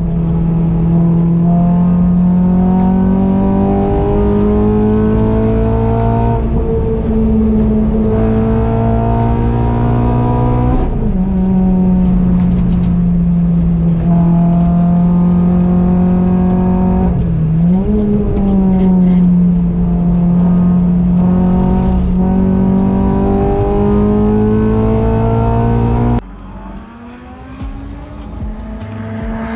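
Renault Clio track car's engine running hard on a circuit, its revs climbing steadily and then dropping sharply about a third of the way in, with a quick dip and recovery just past the middle. Near the end it cuts off suddenly to a much quieter engine sound.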